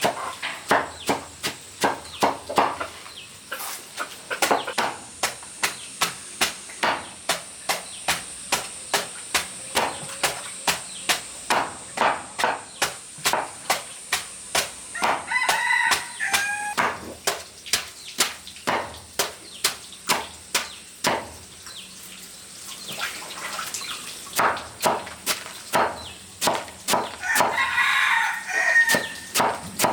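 Steady chopping with a knife on a cutting board, about three strokes a second, easing off briefly about two-thirds through. A rooster crows twice, about halfway and near the end.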